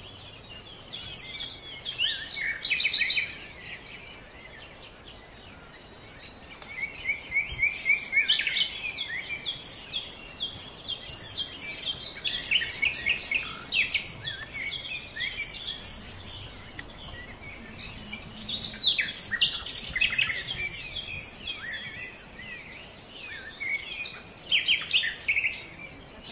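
Small songbirds chirping and singing in repeated bouts of quick, high notes over a faint steady background hiss.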